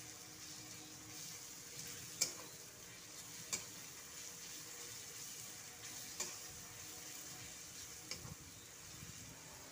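Chopped onions and grated garlic sizzling in oil in a kadai while a flat spatula stirs them. The spatula knocks sharply against the pan four times, loudest about two seconds in.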